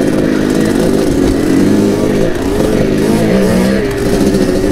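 Two-stroke dirt bike engine running at low revs, its pitch rising and falling with small throttle changes while picking a slow line over river rocks.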